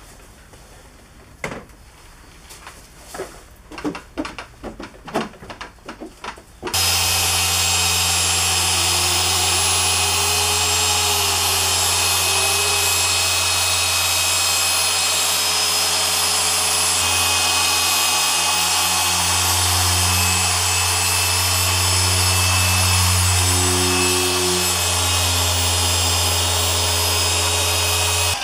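A few light clicks and taps, then about seven seconds in a dual-action machine polisher switches on and runs steadily, with a low hum and a hiss, its tone shifting slightly as it works the paint.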